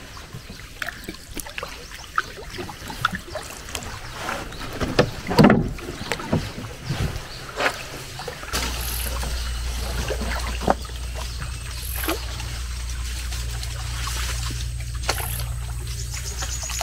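Small canoe being paddled through still swamp water: irregular paddle splashes, water lapping and occasional knocks on the hull. About halfway through, a steady low rumble sets in.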